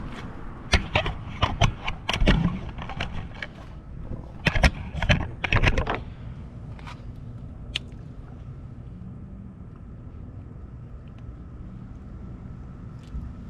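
A run of irregular knocks and clatters, as of hard objects being handled, over the first six seconds or so, with one more click a couple of seconds later. Then a steady low hum with a faint thin whine.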